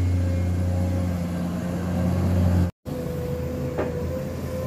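Komatsu PC210 hydraulic excavator's diesel engine running steadily with a low hum. There is a brief dropout a little past halfway, after which it carries on.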